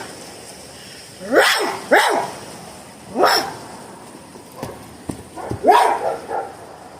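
A person imitating a puppy with their voice: short yips and barks, four clear ones spaced over several seconds with a few softer ones between them.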